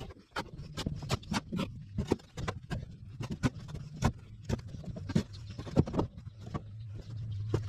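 Shovel scraping and knocking against a trailer deck as dirt is shovelled off: a quick, irregular run of sharp scrapes and clicks. A low steady hum comes in near the end.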